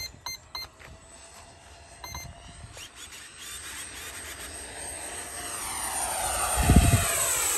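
Twin 64 mm electric ducted fans of a model MiG-25 jet whining in a low flyby, the high whine and rush of air growing steadily louder and peaking near the end, then falling in pitch as the jet passes. A few short electronic beeps sound at the very start, and a brief low thump comes at the loudest point.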